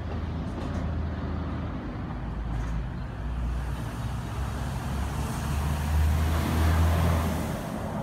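Motor vehicle engine running with a steady low hum, growing louder about six to seven seconds in.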